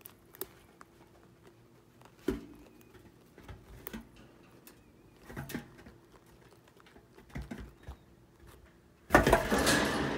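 Chinchillas crunching lupin seeds: scattered small clicks and crackles at an irregular pace. About nine seconds in, a much louder rustling, scraping noise starts and carries on.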